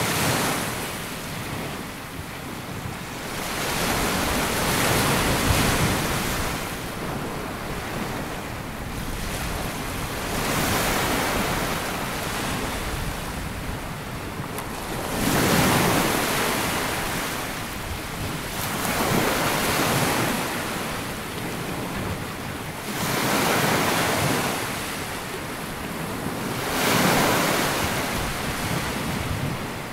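Small sea waves breaking and washing up a sandy beach, surging and receding every few seconds, with some wind on the microphone.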